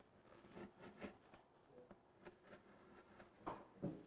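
Near silence, with faint scattered ticks and scratches of a paper card being cut out of a raffle board.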